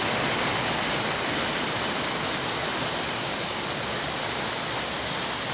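Steady rushing water noise, picked up by a camera held right at the surface of a swimming pool.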